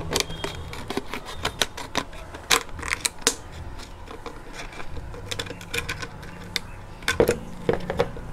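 Scissors cutting around a thin plastic water bottle to take its top off: a run of irregular sharp snips and crackles of the plastic.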